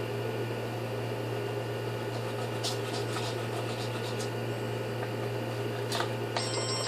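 A steady mechanical hum in a small room, with a few light clicks and taps.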